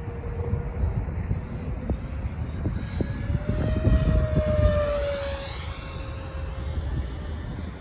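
Twin electric ducted-fan whine of a Freewing SU-35 RC jet making a fly-by, swelling about four seconds in and fading again. Wind buffets the microphone with a low rumble.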